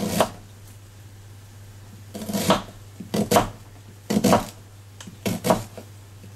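Kitchen knife slicing a peeled half onion thin on a cutting board: about seven crisp cuts, each ending in a tap of the blade on the board, at an uneven pace.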